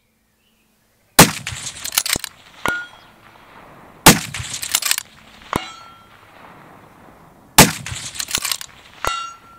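Three shots from a suppressed Accuracy International AT-X rifle in 6.5 Creedmoor, about three seconds apart, each echoing briefly. About a second and a half after each shot comes a faint ringing ding, the bullet striking a steel target downrange.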